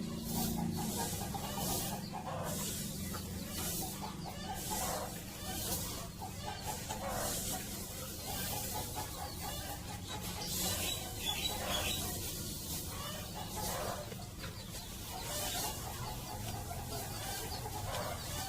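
Domestic chickens clucking in a coop, with short rustling or scraping noises coming every second or two.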